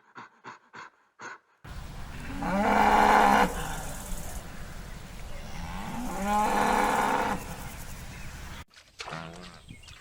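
Cow mooing: two long calls a few seconds apart, each rising in pitch at the start.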